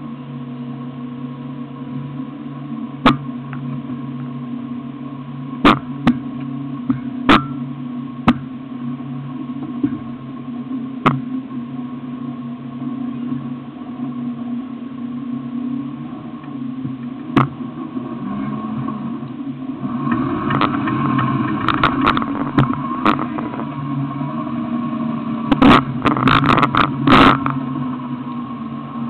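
Off-road 4x4 engine running steadily, growing louder and busier from about two-thirds of the way through. Scattered sharp knocks are mixed in, most of them near the end.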